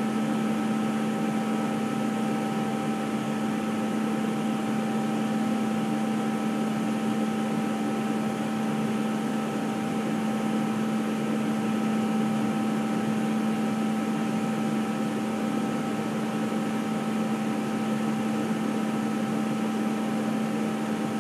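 Steady machinery hum: a low drone with two fainter, higher whining tones above it, unchanging throughout.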